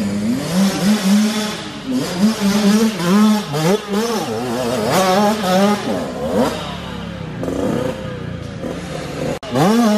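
Small dirt bike engine revving hard under load as it climbs a steep dirt hill, its pitch rising and falling again and again as the throttle is opened and eased.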